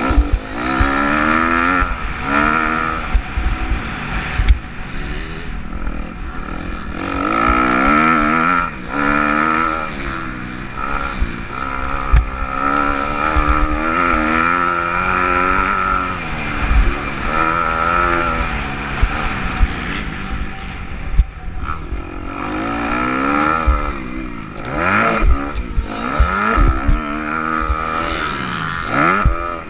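250 motocross bike engine at race pace, its pitch rising and falling over and over as it accelerates, shifts and rolls off through the turns. Frequent short low thumps run under it, picked up on the helmet camera.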